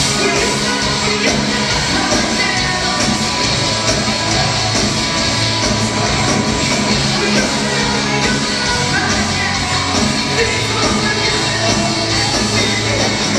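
Live rock band playing at a steady high volume: electric guitars, bass and drums with a singer's vocals.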